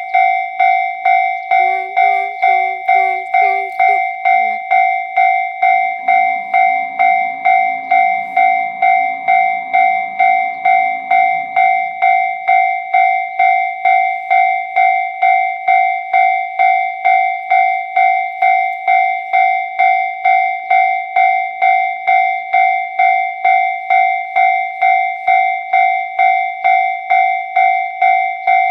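Japanese railway level-crossing alarm (kan-kan crossing bell) ringing steadily, a two-tone clang repeating about twice a second. A low rumble joins underneath for several seconds near the middle.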